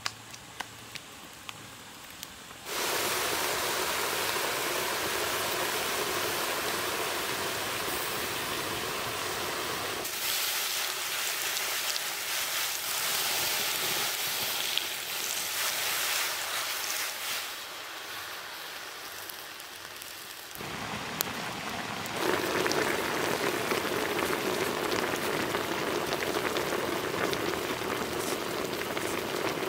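Fish, chillies and shallots sizzling and boiling in a wok over a wood fire: a loud, steady hiss that starts suddenly about three seconds in and shifts in tone a few times. Before it, only faint scattered crackles.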